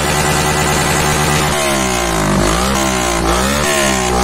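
Yamaha FZ-X's 149 cc single-cylinder engine running through an Akrapovic slip-on silencer with its dB killer removed. It idles briefly, then from about a second and a half in is blipped with the throttle several times in quick succession.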